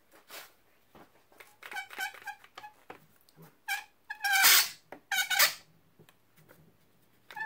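A yellow one-handed Quick-Grip bar clamp being tightened around a gear puller's jaws: several short squeaky rasps as its trigger handle is squeezed, the loudest a little past four seconds in.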